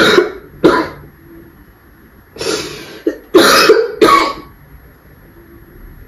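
A woman coughing in a fit: two coughs close together, then after a pause a longer run of several coughs in a row, muffled into a cloth held at her mouth.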